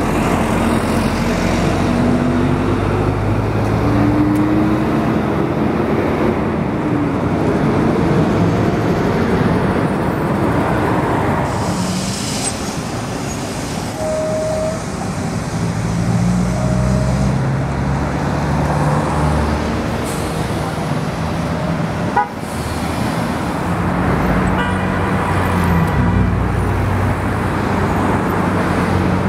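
Steady city road traffic, cars passing on a multi-lane avenue with a continuous rumble of engines and tyres. A brief car horn toot sounds about halfway through, and a single sharp click a little later.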